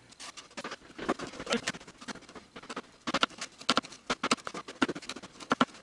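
Chef's knife chopping fresh thyme on a white plastic cutting board: a run of quick, uneven knocks of the blade against the board.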